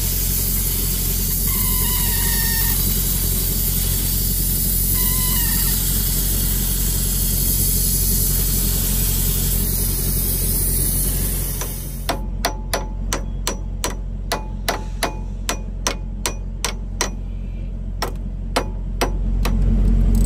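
Steady hiss of refrigerant venting from a semi truck's AC system, with white vapour billowing, which cuts off after about twelve seconds. Then comes a run of sharp metallic clicks, two or three a second, from a wrench working on the AC compressor's mounting bolts. A low rumble comes up near the end.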